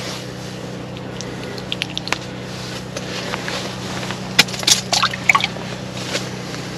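Water splashing and sloshing in an ice-fishing hole: a few short splashes and drips, clustered between about four and five and a half seconds in.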